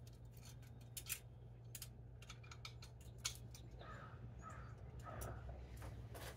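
Faint metallic clicks and taps as a small brass camping stove and its chained key are turned over in the hands. Three short faint calls follow past the middle, over a steady low hum.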